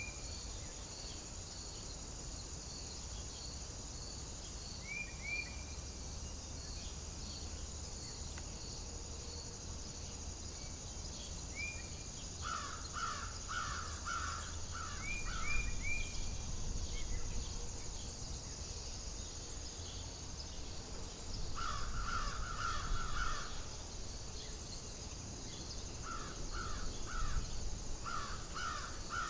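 Outdoor wilderness ambience. A bird gives three runs of harsh, rapidly repeated calls, about twelve seconds in, around twenty-two seconds and near the end. Under them run a steady high insect trill, a few short high chirps and a low wind rumble.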